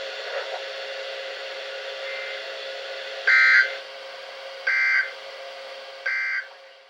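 Emergency Alert System end-of-message data tones played through a weather radio receiver: three short bursts about a second and a half apart, starting about three seconds in, after a few seconds of steady radio hiss with a faint hum. They mark the close of the weekly test broadcast.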